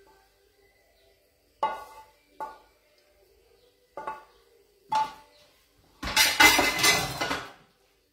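A metal utensil clinks four times against a steel frying pan and a ceramic plate as pasta is served. Near the end comes a louder, rough clattering noise lasting about a second and a half.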